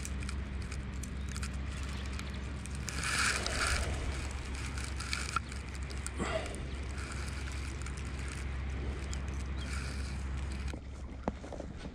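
Boat engine running steadily with a low hum, which stops near the end. A few light clicks and rustles of handling are heard over it.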